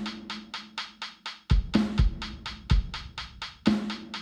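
Programmed rock drum-kit part playing back from a music project: fast, even hi-hat ticks over kick-drum and snare hits.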